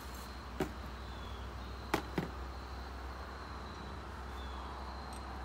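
Three sharp clinks of hand tools and bracket hardware being handled while a minivan tailgate's brackets are fitted, the last two close together.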